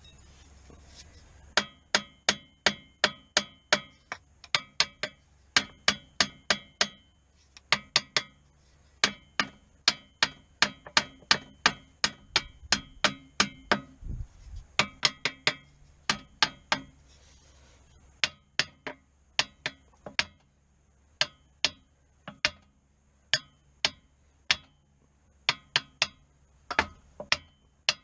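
Hammer blows on steel during disassembly of a tractor's lift arm, in runs of several strikes about two to three a second with short pauses between runs. Each strike rings.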